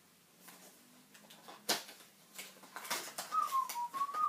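A small cardboard perfume box being opened and handled, with plastic wrapping rustling: scattered clicks and crinkles, one sharp snap about a second and a half in, then a run of quick clicks and rustles. Near the end, a short wavering whistle-like tone over the handling.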